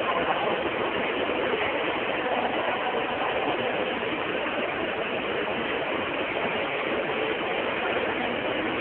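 Steady hubbub of a dense crowd: many people talking at once, blurring into an even din with no single voice standing out.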